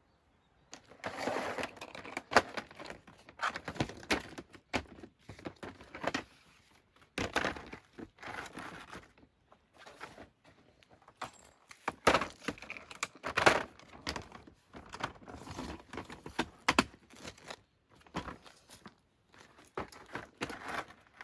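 Objects being handled: irregular rustling, clinks and knocks in bursts, with short pauses between them.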